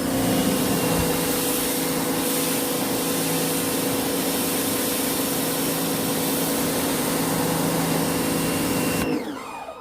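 Titan electric pressure washer running, its motor humming steadily under the hiss of water jetting from the lance. The motor cuts out about nine seconds in.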